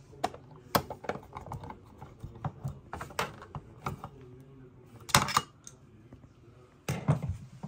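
An irregular run of sharp clicks and clacks from mounting hardware and tools being handled, loudest a little past five seconds in.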